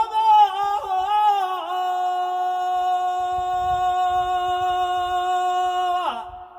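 A man singing a devotional tasbih unaccompanied. He sings a short run of wavering, ornamented notes, then holds one long steady note for about four seconds. Just before the end the note falls away and stops.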